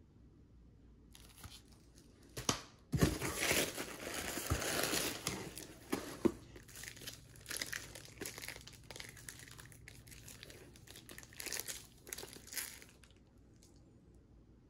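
Plastic packing material and shrink wrap crinkling and rustling as a shrink-wrapped book is lifted out of a cardboard shipping box. There are sharper crackles about two and a half, three and six seconds in, and the rustling dies away shortly before the end.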